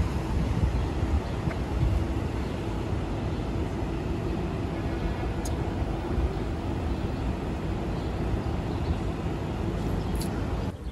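City street traffic: a steady low rumble of cars passing and idling at an intersection.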